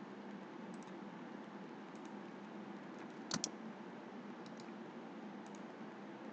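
A few scattered clicks of computer keys over a faint steady hiss, with one louder double click about three seconds in.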